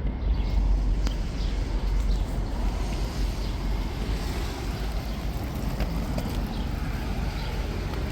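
Steady low rumble of city street noise, with a few faint ticks scattered through it.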